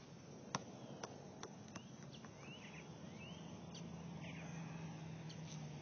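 A basketball bouncing on the court, its bounces coming quicker and fainter until it settles about two seconds in. Then birds chirping, with a low steady hum in the second half.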